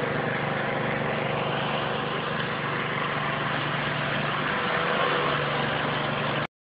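A small engine running steadily at constant speed. The sound cuts off abruptly about six and a half seconds in.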